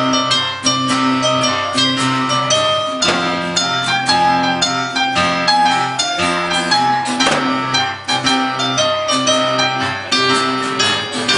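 Live instrumental music: an acoustic guitar and an electric keyboard playing together, a run of distinct plucked and struck notes with no singing.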